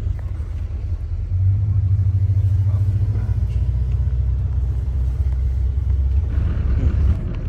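Low, steady road rumble of a moving vehicle, heard from inside it. It grows louder about a second and a half in and eases off near the end.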